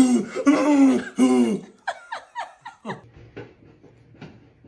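A person's voice making silly wordless sounds: three loud, drawn-out calls in the first second and a half, then a run of short squeaks, each falling in pitch, that fade out.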